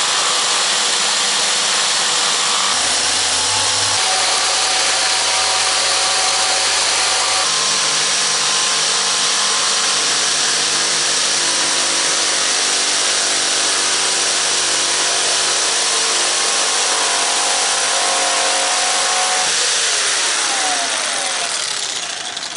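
Corded jigsaw fitted with a Bosch carbide-toothed blade cutting through Coosa composite board. It runs with a steady, harsh sound that shifts in pitch a few times as the cut goes on, cutting smoothly but not fast, then winds down with a falling pitch near the end.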